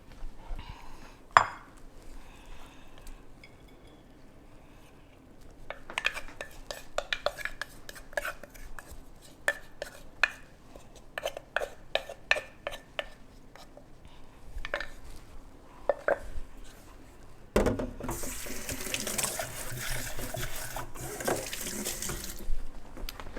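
A spoon and dishes clinking and scraping, with a quick run of sharp knocks from the mortar and plate as the papaya salad is dished out. Near the end comes about five seconds of louder, steady rough noise.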